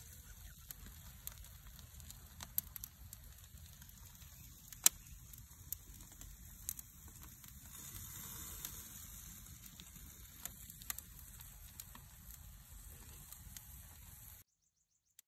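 Steady sizzling hiss of the caught fish cooking, with scattered crackles and one loud pop about five seconds in; it cuts off abruptly near the end.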